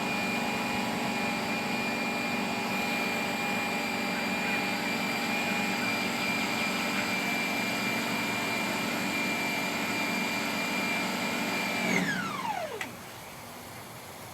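Pressure washer motor running steadily with a high whine while spraying the pre-soak, then switched off about twelve seconds in, its pitch falling quickly as it winds down to a stop.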